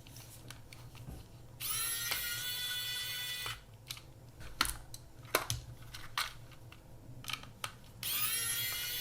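Small electric precision screwdriver whirring twice, about two seconds each, as it backs out tiny screws from a camera body, with the pitch rising briefly as the motor spins up. Light clicks and ticks of small parts and screws being handled come between the two runs.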